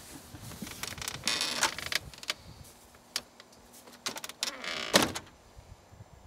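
Short bursts of tearing and scraping with a few clicks as a grouse carcass is worked by hand and with a small knife, skin and tendons being pulled; the loudest burst comes about five seconds in.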